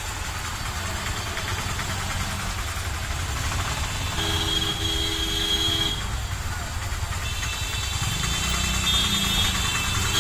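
Auto-rickshaw engine running amid traffic noise, heard from inside the cab. A vehicle horn sounds for about two seconds around four seconds in, and more horns sound near the end.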